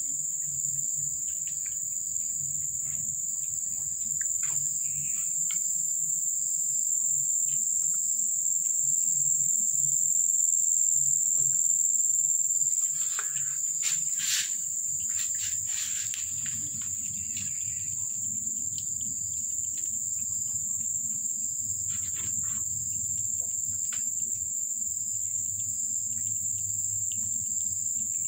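Steady high-pitched insect trill, unbroken throughout, with a few faint clicks and taps around the middle.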